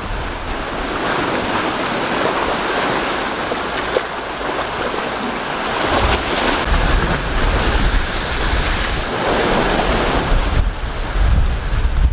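Strong wind buffeting the microphone in gusts, over the steady rush of waves and surf breaking on the shore.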